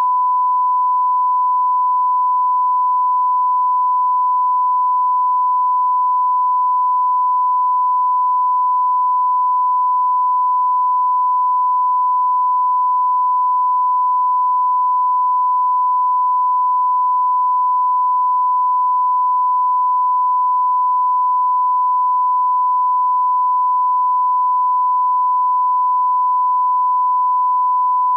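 Broadcast line-up test tone played with colour bars: one steady pure beep, held at a single pitch and level without a break.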